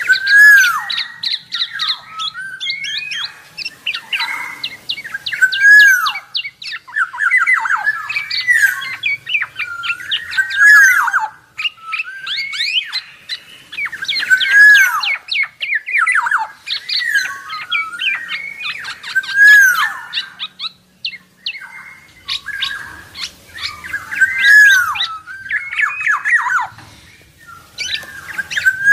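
Black-naped oriole calling noisily: loud arching calls that rise and fall, repeated every two or three seconds, with quick chattering notes between them.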